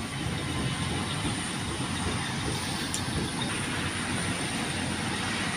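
Combine harvester running steadily while cutting rice, a continuous low mechanical rumble and clatter.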